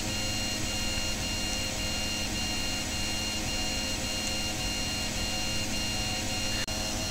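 Steady electrical hum and hiss with a faint high-pitched tone pulsing evenly on and off like a beep, and a single small click near the end.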